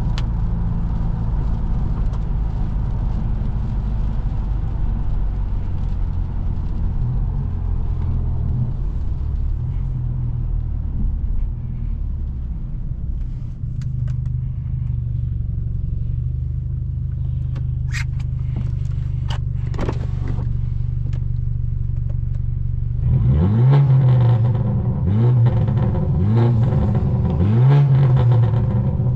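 Straight-piped BMW F30 328i's turbocharged four-cylinder cruising with a steady low exhaust drone. Near the end it accelerates hard through several gears, the note rising and dropping back at each shift.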